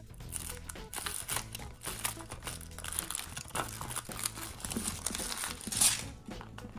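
Thin foil wrapper crinkling and tearing as it is peeled off a chocolate egg, in a steady run of crackles, loudest a little before the end.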